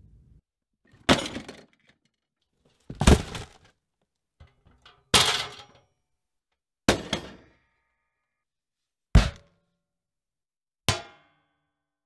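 Six separate sharp knocks and strikes about two seconds apart, each dying away within about half a second and cut off into silence: different objects struck in turn for sound-effect recording, among them a fist knocking a bathtub, bottles in a rack and a shovel blade hitting a metal bin. The last couple of hits ring briefly.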